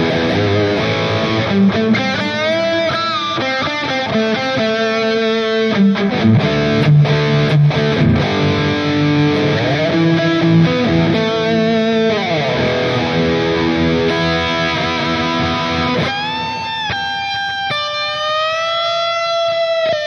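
Distorted electric guitar played through a digital amp-modeling unit with a stereo delay: busy lead lines and chords with string bends, ending in long sustained, bent notes.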